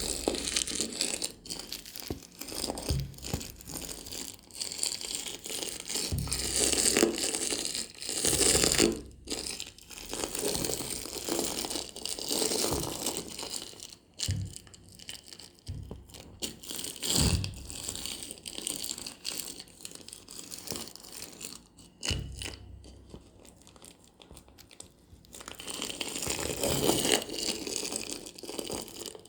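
Close-up crinkling, crunching and scraping of objects being handled, coming in irregular bursts with a few soft thumps.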